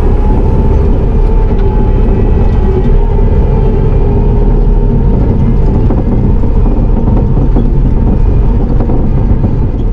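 Bobcat T650 compact track loader's diesel engine running steadily, a loud even rumble with a faint steady whine above it.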